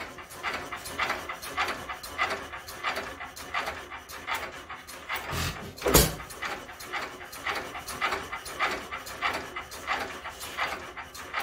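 Modified International hit-and-miss stationary engine coasting between firings, its mechanism making a quick, steady run of clicks, and firing once loudly about halfway through.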